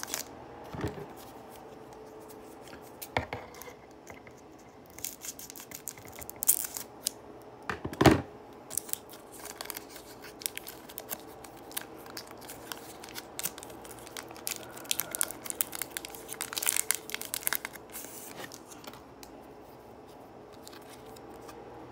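Foil Pokémon booster pack wrapper crinkling and being torn open by hand, with many small crackles; one sharp crack about eight seconds in is the loudest.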